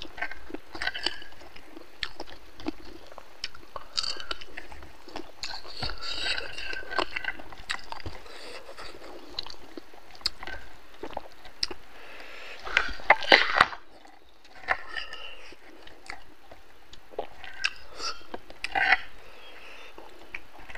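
Close-up chewing and wet lip-smacking of a man eating rice and pork curry by hand, with many short clicks of biting and a louder cluster of them past the middle.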